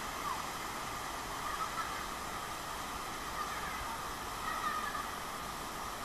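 Steady rush of a waterfall plunging into a pool, with a few faint short cries over it.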